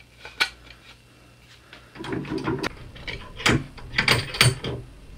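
A bent pressed-steel drawer slide rail and a wood block being handled at a bench vise: a single click, then from about two seconds in, metal rattling and several sharp knocks.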